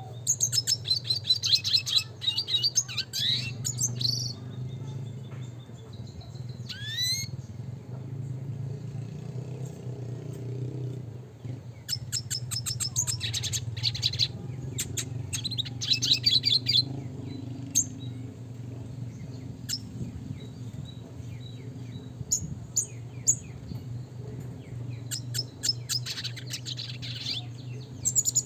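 Red siskin singing: bursts of rapid, high twittering trills with pauses, a rising whistled note and scattered single chirps between them. A steady low hum runs underneath.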